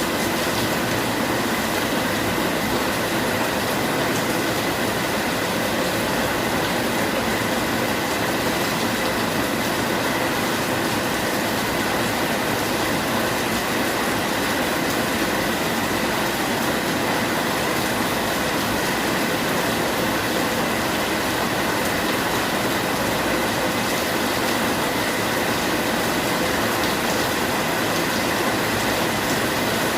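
Steady rain falling, an even, unbroken hiss with no distinct drops or thunder.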